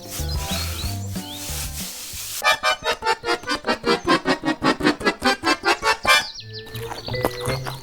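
Background music: a tune over a steady bass line, broken in the middle by a fast, even pulse of about five beats a second from about two and a half to six seconds in.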